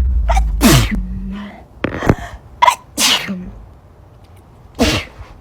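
A person sneezing several times in quick succession, loud, explosive sneezes about a second apart, the last one near the end.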